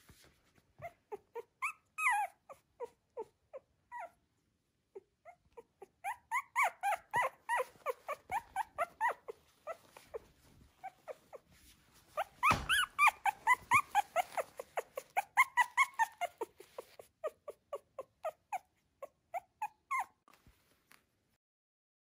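Newborn miniature Schnauzer puppy squeaking and whimpering: many short high cries in quick succession, sparse at first, coming thick and fast through the middle, then thinning out near the end.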